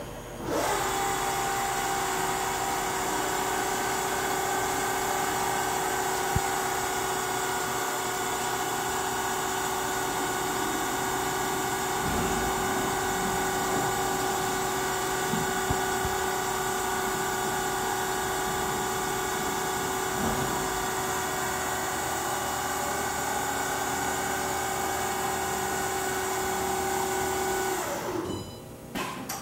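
Spindle of a Milltronics Partner VM24 CNC vertical machining center (Cat-40 taper) spinning up, running at a steady speed with a steady whine, then winding down near the end.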